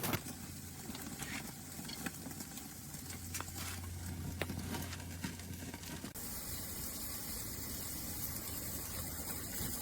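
Beef patties sizzling on a portable propane grill: a steady frying hiss with scattered small crackles and pops, changing in character about six seconds in.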